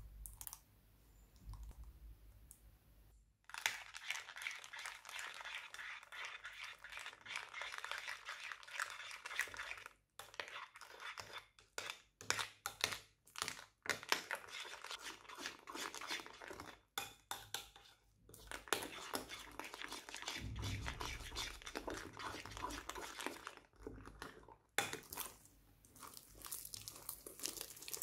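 Slime being mixed and squeezed by hand with powder worked into it: a run of fine, close-packed crackling and crinkling sounds that starts about three seconds in and stops briefly now and then.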